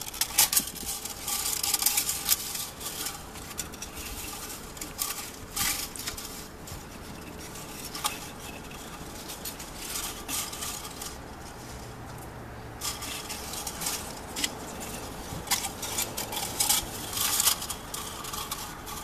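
Hands handling the parts of a blown Boss CXX12 subwoofer and pulling its burnt copper voice-coil wire loose: irregular scratchy rustles and small sharp clicks of wire, plastic and metal.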